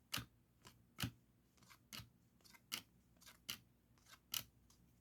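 Baseball trading cards being flipped through one at a time by hand: a short, sharp snap of card against card about once a second, six or so in all, faint.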